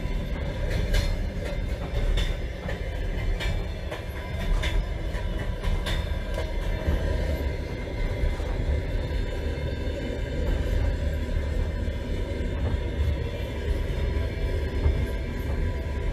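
Passenger train running, heard from inside its toilet compartment: a steady low rumble, with several sharp clicks and knocks in the first six seconds or so.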